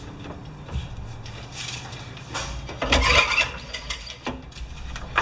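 Mechanical clatter and knocks from working on the Honda HRA214 lawn mower, with one louder scraping burst lasting about a second, around three seconds in.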